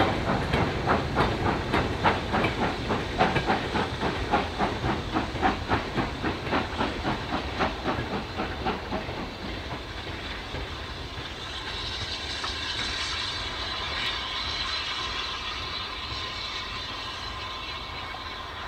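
Steam locomotive working a loaded goods train, its exhaust beating in a steady rhythm of chuffs that fades away over the first half as it draws off. A steady hiss takes over in the second half.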